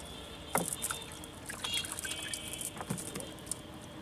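Water trickling and splashing in the bottom of a wooden fishing boat around a wet cast net and fish, with a few light knocks.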